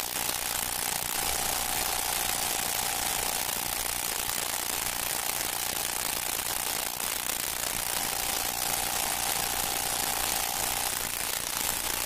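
Steady hiss of recording noise with a thin steady tone, which drops out for a few seconds now and then, and a low rumble underneath; no music or voices.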